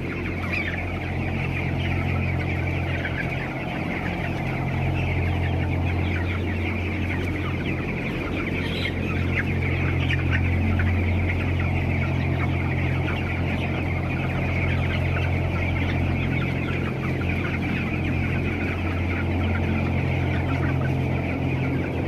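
A large flock of chickens clucking and chattering all together in a dense, continuous din, over a steady low hum.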